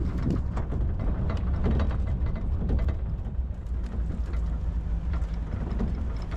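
Pickup truck driving slowly over rough pasture: a steady low rumble from the engine and tyres, with frequent small rattles and knocks from the truck's body.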